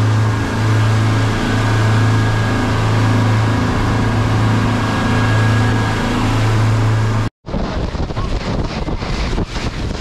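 A boat's engine running with a steady low hum under a rush of noise. About seven seconds in it cuts off abruptly to gusty wind buffeting the microphone.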